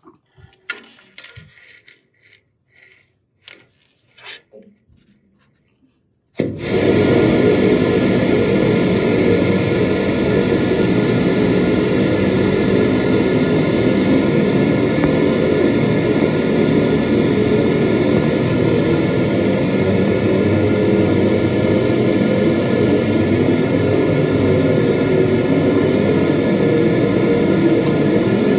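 A few scattered knocks and clicks, then, about six seconds in, a high-pressure drain-jetting washer starts abruptly and runs steadily and loudly while the main drain pipe is being jetted.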